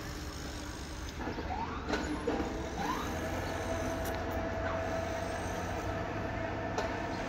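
Construction-site machinery: a steady low engine rumble, with a rising whine about two seconds in that settles into a steady high whine, and a few sharp clicks.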